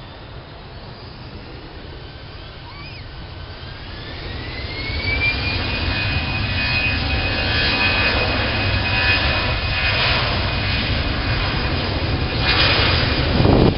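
Twin jet engines of an Airbus A320-family airliner spooling up to takeoff thrust: a whine rises in pitch a few seconds in and then holds steady, while the engine rumble grows louder as the jet rolls down the runway.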